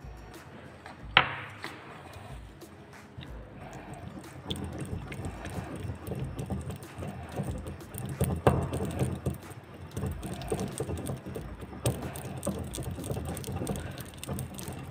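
Porcelain pestle grinding and scraping round a porcelain mortar, working the melted ointment base into zinc oxide powder to form a paste, with irregular knocks of the pestle against the bowl from about four seconds in. A single sharp knock comes about a second in, and another strong knock near the middle.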